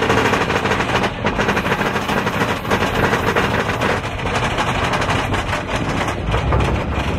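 Mine-train roller coaster clattering along its track at speed, a fast continuous rattle under wind rushing over the microphone.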